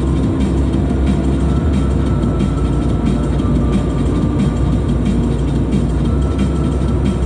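Car driving at highway speed: steady tyre, road and engine noise, mostly low rumble.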